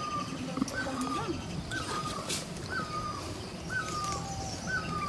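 A bird calling over and over: a short whistled note that rises and then falls away, repeated about once a second.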